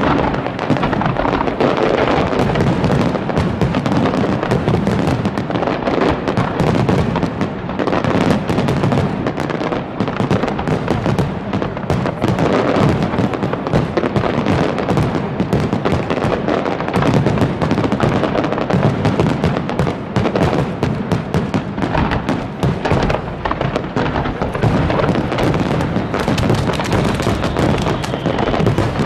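Loud fireworks barrage: aerial shells bursting in rapid, overlapping succession with continuous crackling, and no pause anywhere.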